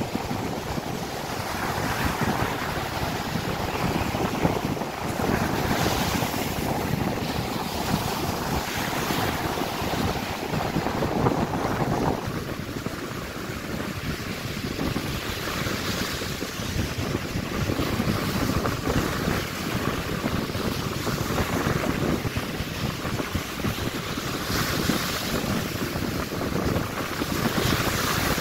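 Ocean surf breaking and washing up the beach in repeated surges every few seconds, with wind buffeting the microphone.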